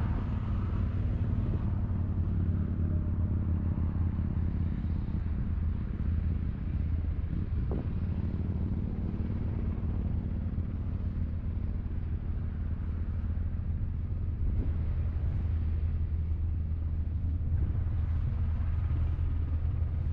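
An unseen engine running steadily at a constant low pitch, a continuous drone.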